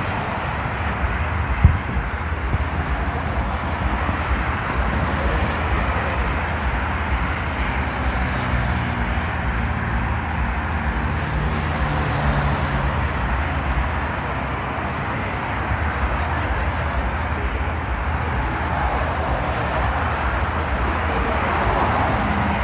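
Steady outdoor din with a vehicle engine running, its hum most noticeable in the middle stretch, and one sharp bang about two seconds in.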